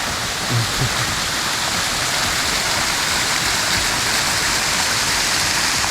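Small waterfall pouring: a steady, even rush of falling water.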